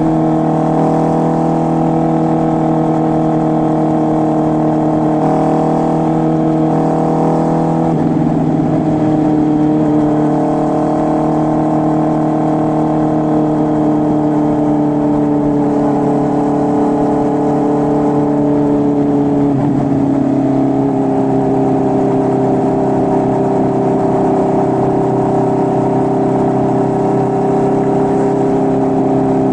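Honda CB650R's inline-four engine through an SC Project full exhaust system, running steadily. Its pitch sags slowly and steps down twice, about a third of the way in and again past the middle.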